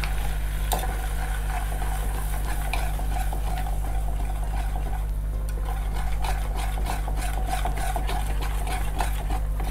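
A spoon stirring a roux of flour and melted butter in a saucepan over low heat, with a faint sizzle, one click about a second in and short scraping ticks that come thicker in the second half. A steady low hum runs underneath.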